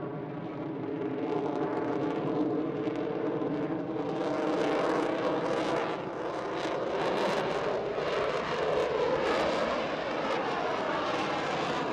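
F-35B fighter jet taking off on afterburner: a steady jet engine roar with whining tones. It grows louder about four seconds in, with a ragged crackle as the jet passes and lifts off, and some of the tones slide downward near the end.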